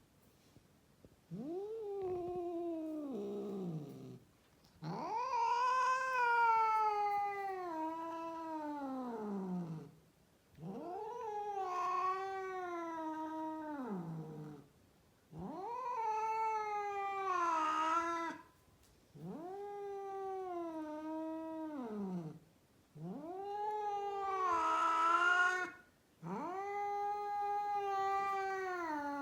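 A female cat caterwauling: a series of seven long, drawn-out yowls with short breaks between them. Each yowl rises at the start, holds, then slides down in pitch at the end.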